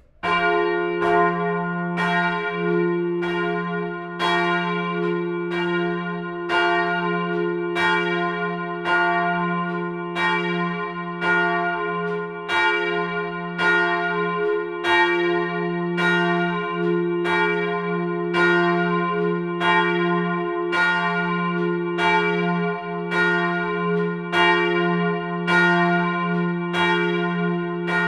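Church bells ringing, starting suddenly: steady, evenly spaced strokes, roughly two a second, with a low hum sustaining between them.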